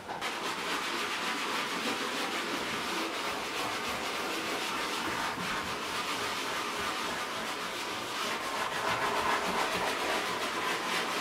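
Cloth rubbing over a leather couch's surface, a steady scrubbing hiss as the cleaned leather is wiped down.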